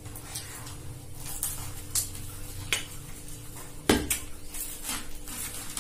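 Metal spoons clinking and scraping against small bowls and plates while eating, a scattered series of short sharp clinks, the loudest about four seconds in.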